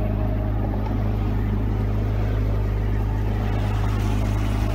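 Small motorboat's engine running steadily under way: an even low hum with a fixed pitch.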